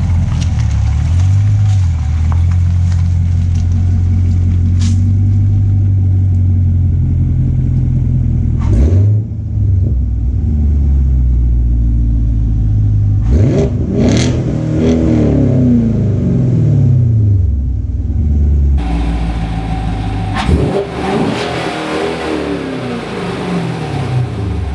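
Chevrolet Camaro SS 1LE's 6.2-litre LT1 V8 through a Magnaflow exhaust, idling steadily, then revved twice, the pitch climbing sharply and falling away each time.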